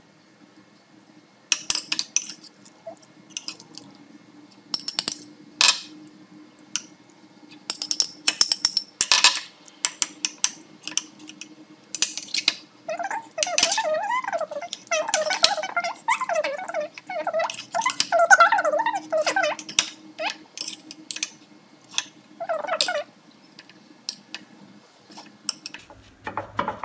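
A metal spoon clinking and scraping against a ceramic bowl while spreading a thick marinade, heard as a run of sharp, irregular clicks.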